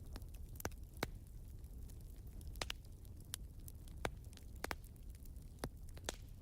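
Fire crackling: irregular sharp pops and snaps over a low steady rumble.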